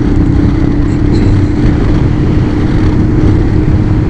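Honda Transalp V-twin motorcycle under way at a steady speed, heard from the rider's position: a steady engine hum over rushing wind and road noise.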